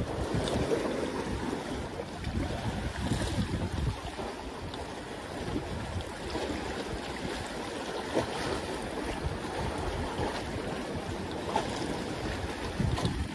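Sea water washing and lapping against the concrete tetrapods of a breakwater, with wind rumbling on the microphone.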